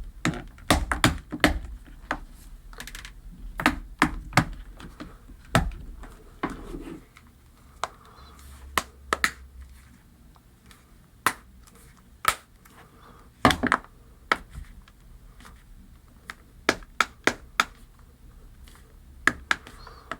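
Plastic clicks and knocks as a headphone earpad is pressed and worked onto its earcup against a tabletop, with repeated sharp taps coming thickest in the first few seconds and scattered after that; the pad's snaps are not catching.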